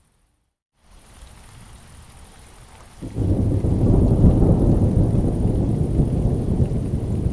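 Rainstorm ambience: after a dead-silent gap of under a second, faint rain hiss returns, and about three seconds in a loud, deep rumble of thunder breaks in suddenly and keeps rolling.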